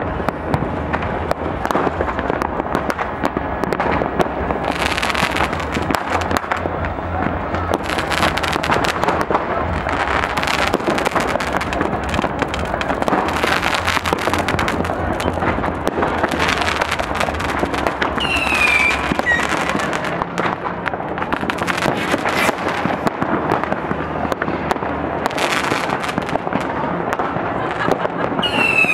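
Dense, continuous barrage of firecrackers and fireworks: many overlapping bangs and crackles with no pause. Two short whistles falling in pitch cut through, about two-thirds of the way in and again near the end.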